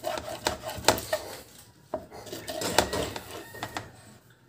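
Irregular knocks and clatter of kitchen utensils and containers being handled on a stainless-steel sink counter, some strikes leaving a brief metallic ring.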